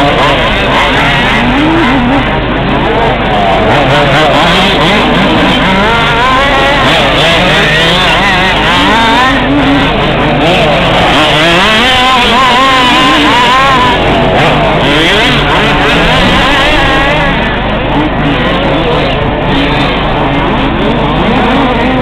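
Several radio-controlled off-road buggies racing, their small two-stroke engines revving up and down and overlapping in a constant high-pitched drone.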